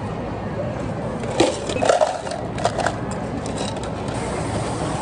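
Ice clattering into clear plastic cups, a few sharp knocks over about a second and a half, over a steady machine hum.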